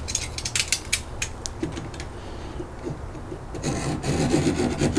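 Utility knife blade scoring and scraping along loose wood veneer, a dense rasping that starts about three and a half seconds in, after a few sharp clicks and knocks in the first second or so.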